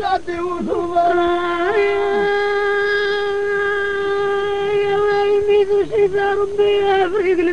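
Solo singer holding one long, steady sung note for several seconds, then breaking into short ornamented turns near the end, in a style of Amazigh sung poetry (inshad).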